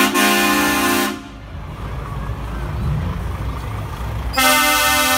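Truck horns blown twice: a blast of about a second at the start and another about four seconds in, with the low rumble of truck engines between.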